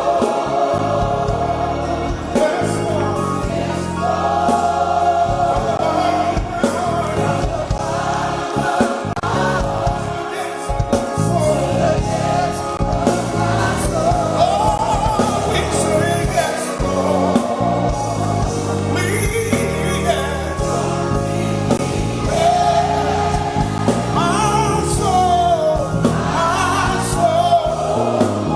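Gospel choir singing with instrumental accompaniment, continuous throughout.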